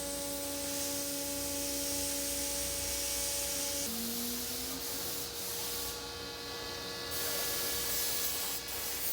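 Steady mechanical hum with a hiss over it, like running machinery; about four seconds in it switches abruptly to a slightly different hum, with a brief rising tone.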